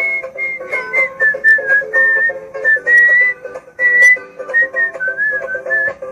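A whistled tune of short notes with small slides, over plucked strings playing repeating chords.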